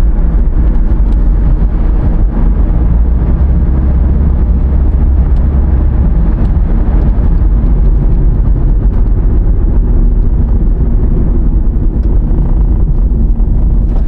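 Inside the cabin of a 2014 Toyota Prius driving on a road: a loud, steady low rumble of tyre and road noise.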